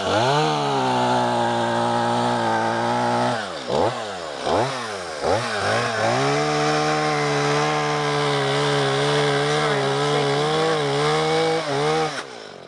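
Gasoline chainsaw revved up to full throttle and held there, then the throttle is let off and blipped a few times before it is opened up and held high again; it drops off near the end.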